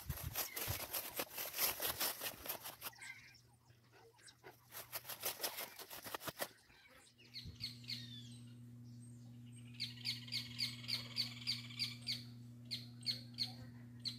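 Tall grass rustling and swishing against someone pushing through it on foot, the loudest sound, in two spells over the first six seconds or so. After a cut, a bird calls in a quick series of sharp, repeated chirps, thickest near the middle of the second half, over a steady low hum.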